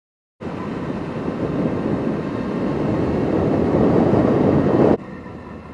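A motorcycle on the move: wind rushing over the microphone with the engine beneath it. It starts suddenly, grows steadily louder for about four and a half seconds, then drops abruptly to a quieter run near the end.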